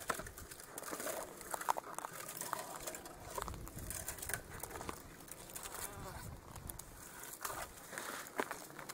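Dry desert brush rustling and crackling and gravel crunching as a metal detector's coil is swept low through the scrub and its operator steps slowly along; a string of short, irregular scrapes and snaps.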